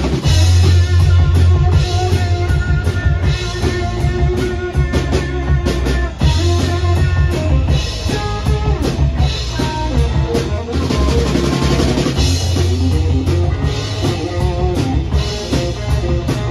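Live rock band playing an instrumental passage: electric guitar lead lines over electric bass and a drum kit.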